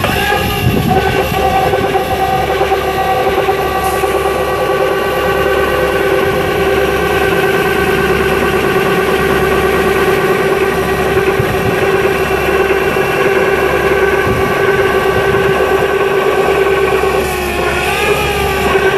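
Case skid steer running at high revs with its hydraulics driving the Bobcat stump-grinder attachment: a steady machine whine over the diesel engine. The pitch dips briefly near the end and recovers.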